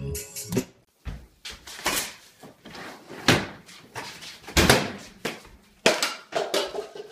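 Kitchen doors being slammed shut, the microwave door among them: about half a dozen sharp bangs in quick, uneven succession.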